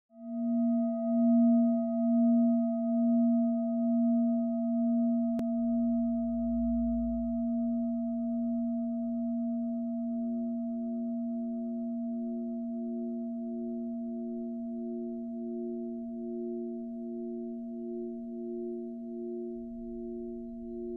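A sustained ringing drone of a few steady, unevenly spaced pitches that slowly wavers in loudness and gradually fades; about halfway through, a second wavering tone joins it, the lead-in to a song.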